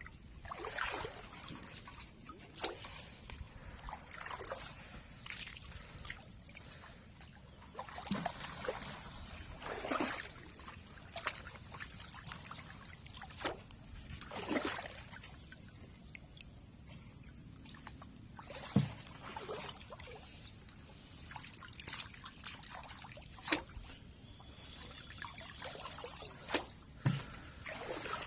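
Shallow water splashing and trickling in irregular bursts, about a dozen splashes spread unevenly, over a faint steady high-pitched tone.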